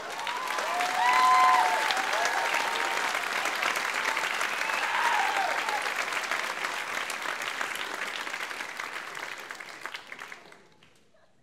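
Audience applauding, with a few cheers in the first seconds; the clapping dies away near the end.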